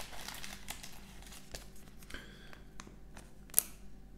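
Soft rustling and small clicks of a Pokémon trading card and plastic card sleeves being handled as the cards are sleeved, with a short swish about two seconds in and one sharper click about three and a half seconds in.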